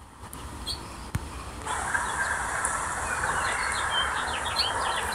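Small birds chirping in short, quick falling notes, several in a row over the last couple of seconds, over a steady hiss that comes in a little under two seconds in.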